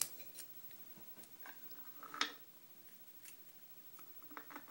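Light metallic clicks and taps from handling a brass lock cylinder and working a thin metal shim into the face of its plug, with a sharper click about two seconds in and a few quick small clicks near the end.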